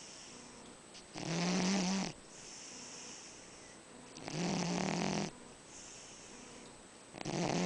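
Cat snoring while asleep: a loud snore lasting about a second, coming about every three seconds, with quieter breaths between.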